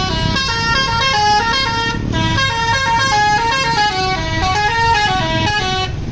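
A bus's telolet musical horn plays a fast tune of short, stepped notes over engine and street rumble. The tune breaks off briefly about two seconds in and stops just before the end.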